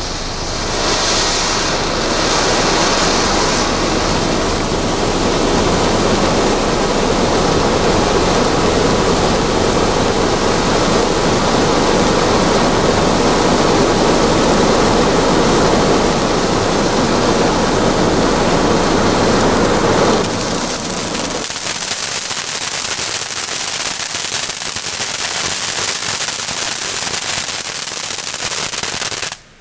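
Skysong 'Mini Snow Cone' ground fountain firework spraying sparks with a loud, steady hiss. About two-thirds of the way through the lower, fuller part of the sound drops away and a thinner hiss carries on. It cuts off suddenly near the end.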